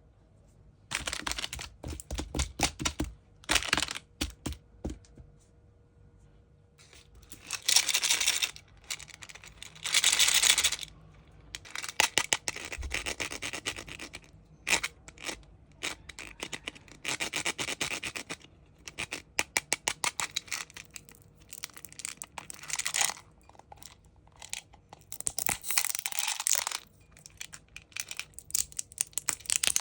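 Sweet packaging being torn open and crinkled by hand: repeated bursts of tearing and rustling, with runs of rapid crackling and short pauses between.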